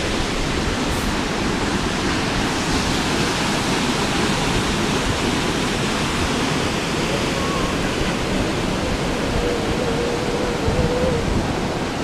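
Waterfall rushing with a steady, even roar of falling water.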